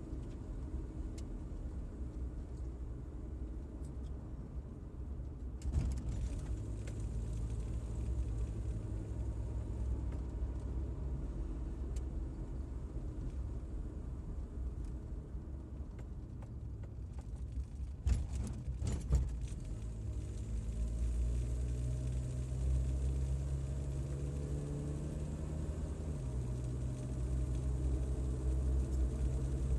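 Car engine running and tyre rumble, heard from inside the cabin while driving. The engine note climbs in the last third and drops suddenly near the end, and there are a few sharp knocks a little past halfway.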